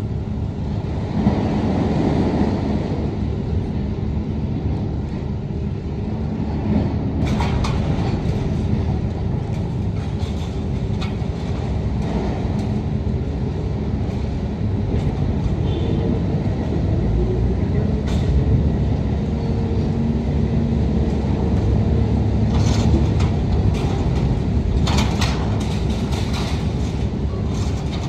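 Hitachi ZX1000K high-reach demolition excavator's diesel engine running steadily under load with a low drone, and scattered sharp metal cracks and clanks from its shear attachment working steel.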